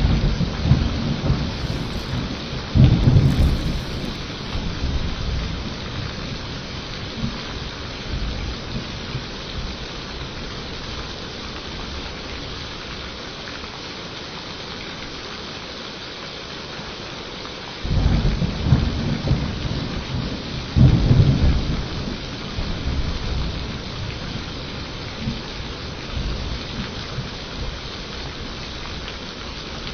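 Steady rain falling, with two rolls of thunder: one right at the start and another about eighteen seconds in, each rumbling low for several seconds and swelling to a second peak before fading back into the rain.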